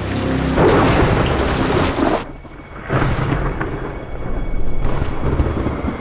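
Thunder rolling over rain in a film soundtrack, loudest about a second in. The rain hiss cuts off sharply after about two seconds, and further rumbles follow.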